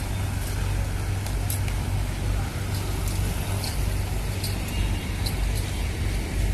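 A vehicle engine idling with a steady low hum, over outdoor background noise and a few short, faint high clicks.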